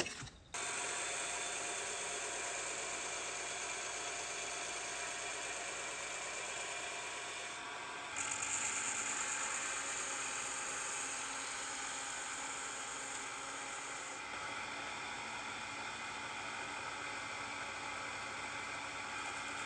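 Belt grinder running while a steel knife blade's bevel is ground: a steady whirring hiss that starts abruptly and changes character suddenly about eight and again about fourteen seconds in.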